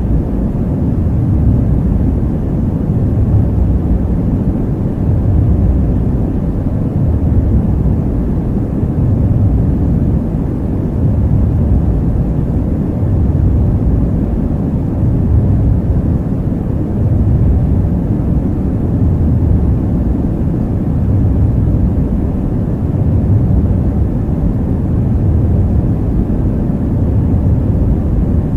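Deep, steady starship engine rumble from the ambient white-noise soundscape of a Star Wars: Galactic Starcruiser Halcyon cabin window, swelling and easing slowly.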